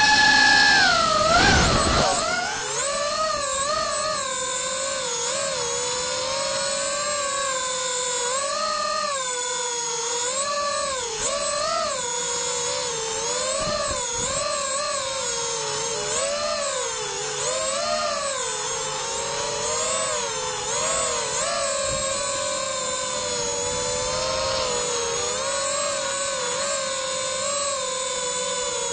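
FPV freestyle quadcopter's brushless motors whining, the pitch rising and falling constantly with the throttle. The whine is highest at the start and drops about two seconds in.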